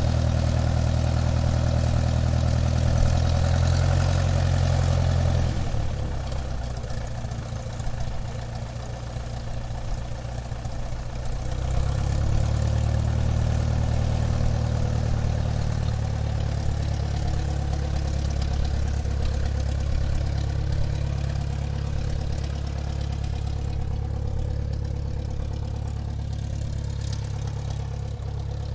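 Airplane engine running at low power while taxiing, a steady low drone. It drops back about six seconds in, picks up again about twelve seconds in, then holds steady and eases off near the end.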